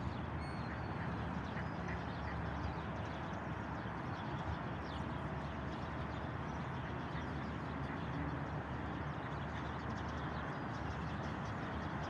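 Mallard ducks quacking over a steady low background rumble.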